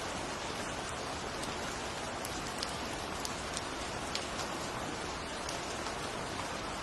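Steady rain falling, with scattered sharp ticks of single drops striking close by.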